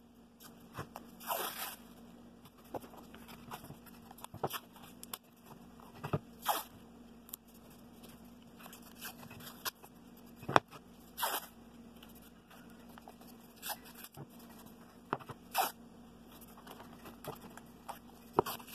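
Blue painter's tape being pulled off the roll in short rasping rips and torn off, with hands handling the tape and board. There is one sharp click about halfway through.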